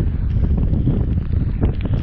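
Strong wind buffeting the microphone: a loud, steady low rumble with scattered sharp ticks over it.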